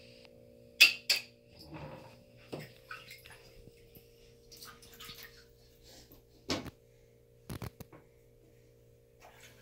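A toddler's hands splashing and slapping the water in a toilet bowl: a few sharp slaps, the loudest two close together about a second in, with softer sloshing between them.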